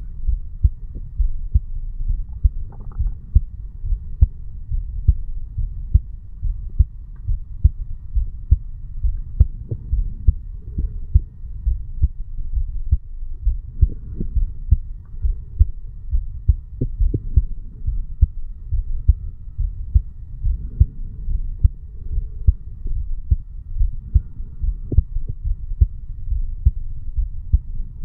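Heartbeat of a 35-year-old man, picked up against the chest over the mitral (bicuspid) valve area: steady, regular low beats a little over one a second.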